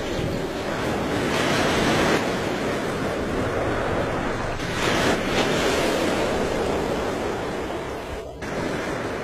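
Water rushing and splashing as a large body moves through a river, swelling louder twice, with a brief cut-out near the end.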